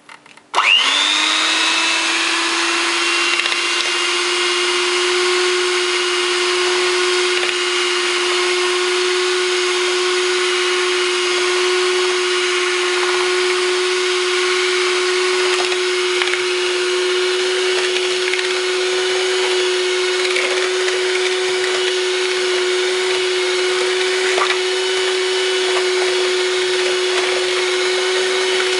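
Electric hand mixer switched on, its motor quickly spinning up and then running at a steady high whine as its wire beaters whisk egg and sugar in a plastic bowl, with a few light clicks.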